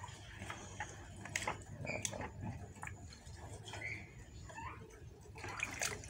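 Quiet splashing and dripping of water in a plastic basin as a zebra dove held in the hands is dipped and soaked through.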